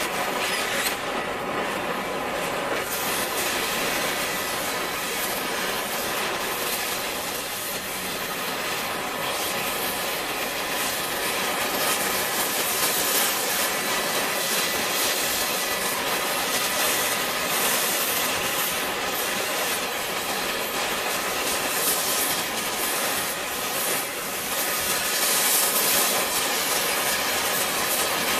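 MagneGas2-fuelled cutting torch flame burning steadily against tungsten, an even, unbroken hiss.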